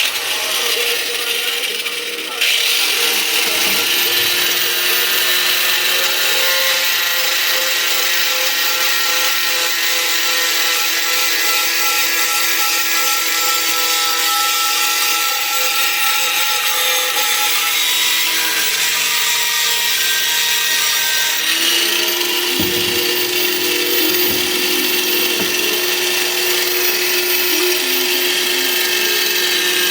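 A power tool running continuously on steel, with a steady whine over a rough hiss. It gets louder about two and a half seconds in and changes pitch about two-thirds of the way through.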